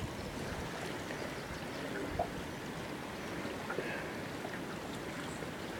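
River water rushing steadily, with small splashes and gurgles scattered through it and one slightly louder splash about two seconds in.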